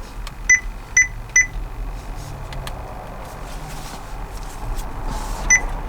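Short electronic touch-confirmation beeps from an Android car stereo head unit as its touchscreen is tapped: three quick beeps about half a second apart, then one more near the end, over a low steady hum.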